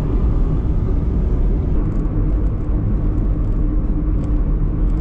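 Steady low rumble of a car driving along a road, heard from inside the cabin: engine and tyre noise, with a faint steady hum in the middle.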